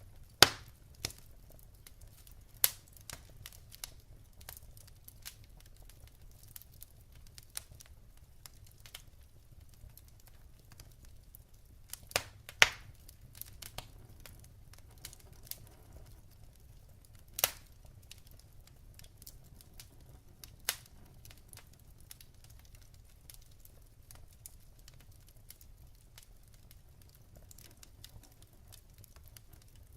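Wood fire crackling in a fireplace: scattered sharp pops and snaps from the burning logs over a faint low rumble, a handful of pops standing out, the loudest near the start and around twelve seconds in.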